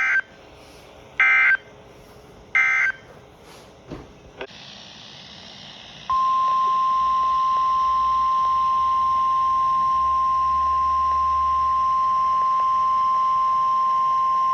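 Three short bursts of EAS SAME digital data tones, the end-of-message code closing a NOAA Weather Radio warning. About six seconds in, the NOAA Weather Radio 1050 Hz warning alarm tone comes on: one loud, steady tone that runs on past the end.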